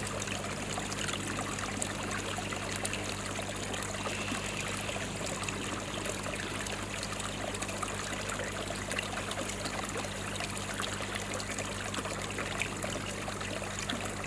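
Pond water trickling and running steadily, with a low steady hum under it.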